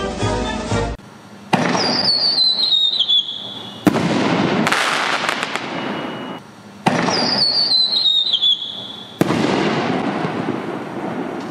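Two 5-inch canister shells with whistling tails. Each fires from its tube with a sudden report and whistles as it climbs, the whistle falling in pitch over about two seconds. It then breaks with a sharp bang, followed by a few crackles and a fading rush.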